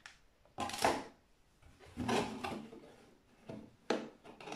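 Cardboard box and plastic packaging being handled and set down: two rustling scrapes about a second apart, then a few light knocks near the end.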